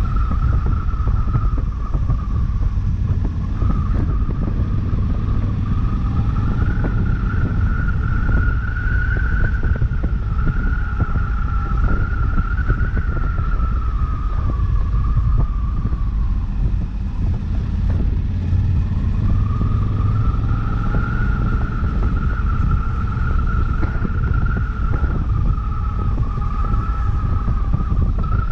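Honda CRF1100L Africa Twin's parallel-twin engine running while the motorcycle cruises, heard from a camera mounted on the bike under heavy wind rumble. A high whine slowly rises and falls with the riding, fading out for a few seconds around the middle.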